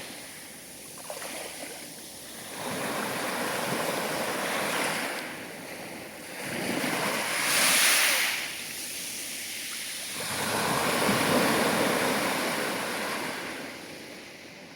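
Sea waves breaking and washing in, rising and falling in three surges of surf, the loudest about halfway through.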